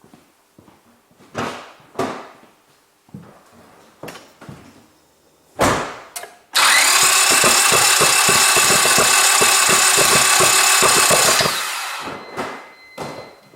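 Car starter motor cranking a gasoline engine whose spark plugs have been pulled out and left on their leads for a spark test. It comes in suddenly about halfway through, runs for about five seconds as a whine with a fast, regular pulsing, then winds down. Before it there are a few scattered knocks and clicks.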